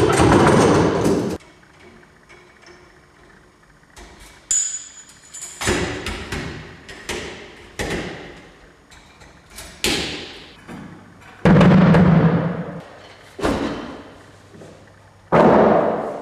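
Irregular percussive strikes, about ten in all, each ringing on and dying away over a second or so. The heaviest is at the start and another deep one comes about two-thirds of the way through.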